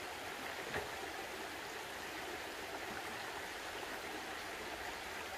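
Shallow mountain stream running over rocks, a steady rushing, with one light knock about a second in.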